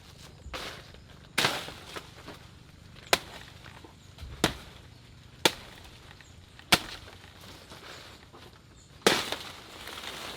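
Chopping: about seven sharp strikes at uneven intervals, a couple of seconds apart.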